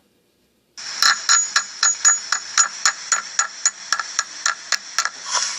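A quick, even series of light taps or clicks, about four a second, with a faint ringing tone, starting after nearly a second of silence.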